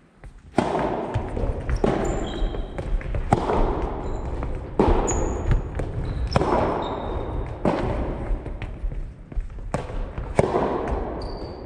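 Soft tennis rally: the rubber ball is struck by rackets and bounces on a wooden gym floor, about eight sharp hits at roughly one every second and a half, each echoing through the hall. Short high squeaks of sneakers on the floor come between the shots.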